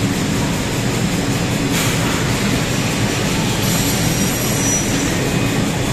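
Holztek Tectra-328F CNC panel saw running as its saw cuts through a clamped stack of laminated boards: a loud, steady machine noise.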